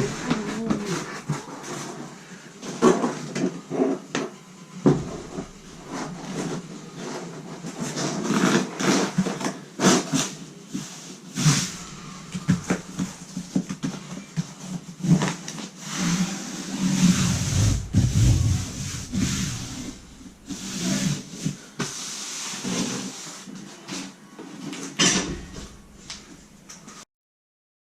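A notched trowel scraping and spreading thinset mortar, with irregular scrapes and clicks of tile-setting work and a low thump a little past the middle. It stops abruptly just before the end.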